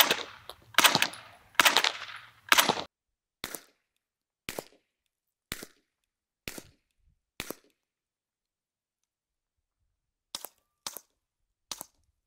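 Suppressed gunfire from an MP5 SD submachine gun and a suppressed Mark 23 .45 pistol firing subsonic rounds in turn. There are four louder shots with an echo over the first three seconds, then five quieter shots about a second apart, then three faint shots near the end.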